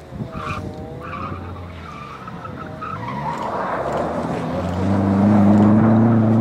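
Rally car engine revving hard as the car slides through a gravel corner, with gravel and grit spraying from the tyres. The engine note rises and falls at first, then holds steady and loud near the end as the car passes close.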